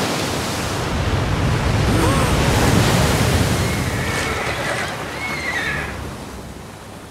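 Cartoon flood effect: a loud rush of water sweeping through, fading toward the end, with a short whinny-like cry about two seconds in.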